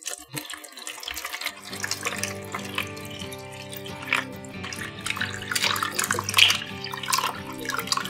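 Running water splashing and trickling in many small irregular splashes, with steady background music that comes in about a second and a half in.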